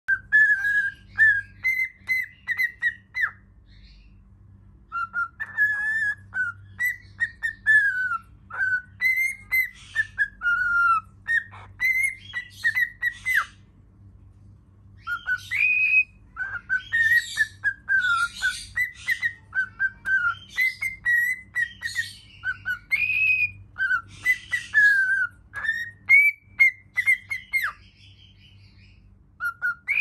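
A cockatiel sings a run of short, clear whistled notes that rise and fall in pitch, in phrases broken by a few brief pauses.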